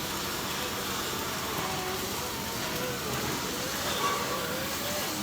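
Steady hiss and crackle of a flux-cored arc welding stainless steel.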